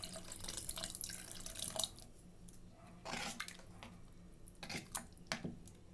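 Water pouring from a jug into a pressure cooker pot of thick chicken haleem mixture for about two seconds. Then a spoon stirring the mixture, with a few sharp clicks of the spoon against the pot near the end.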